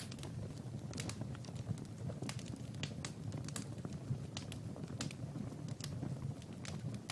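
Wood fire crackling in a fireplace: irregular sharp pops and snaps, several a second, over a steady low hum of burning.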